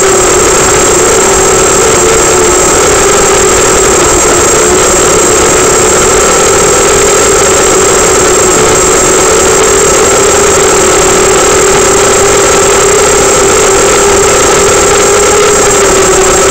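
Brushless motors and propellers of a 250-size FPV racing quadcopter buzzing steadily in flight, heard loud and close through its onboard camera, the pitch wavering a little as the throttle changes.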